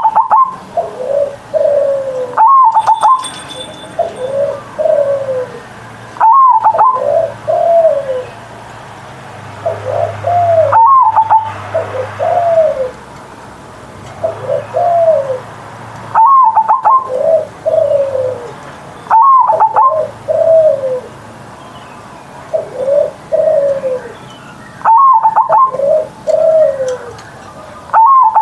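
Zebra dove (perkutut) cooing its song: a phrase that repeats about every three seconds, each a short higher opening note followed by several lower, falling coos. It is loud and repeats about eight times.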